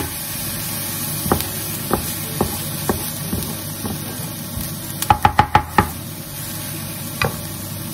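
Diced onions sizzling in olive oil in a frying pan, stirred with a wooden spoon that knocks against the pan: a few single knocks, then a quick run of about six taps about five seconds in, and one more near the end.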